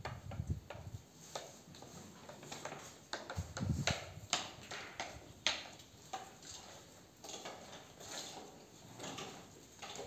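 Sheep shuffling and feeding in a pen of wooden troughs and dry fodder, with irregular light clicks and rustles.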